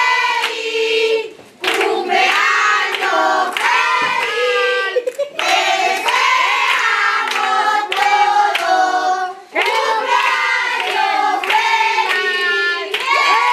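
A group of voices singing together in phrases to steady rhythmic hand clapping, with short breaks between phrases.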